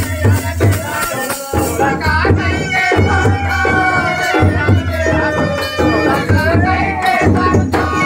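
Raut Nacha folk music: a held, wavering melody line over repeated drum beats and jingling rattles.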